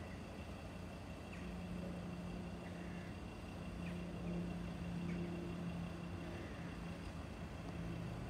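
A steady, low engine hum from a vehicle, growing slightly louder, with a faint high whine above it.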